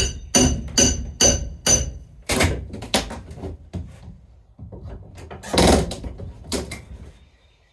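A hammer striking metal, five quick ringing blows about two a second, followed by irregular knocking and clatter with one louder, longer scrape or clunk about five and a half seconds in.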